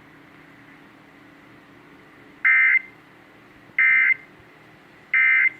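Emergency Alert System (SAME) digital data tones: three short bursts of the warbling two-tone modem sound, each about a third of a second and about 1.3 seconds apart, over faint radio hiss. Bursts this short and in threes are the End-of-Message (NNNN) code that closes a weather alert broadcast.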